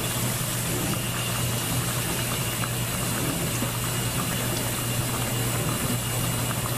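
Pot of brown gravy with pork loin steaks bubbling steadily on the stove, with a steady low hum underneath.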